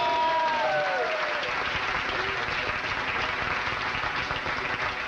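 Audience applauding steadily, with a few held music notes fading out in the first second and a half. The applause eases off slightly toward the end.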